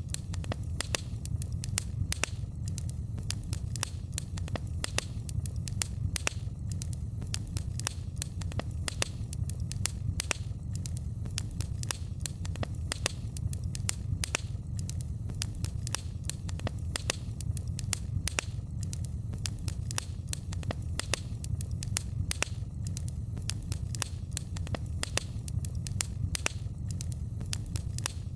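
Wood fire crackling in a fireplace: frequent, irregular sharp pops and snaps over a steady low rumble.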